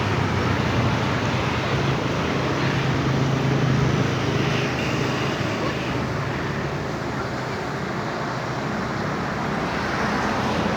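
A speedboat's engine running at high speed as it passes, a steady hum over water and wind hiss. It grows to its loudest about four seconds in, then fades.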